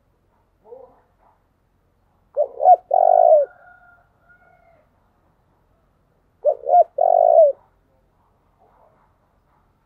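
Spotted dove cooing twice, about four seconds apart. Each phrase is two short notes followed by a longer held coo.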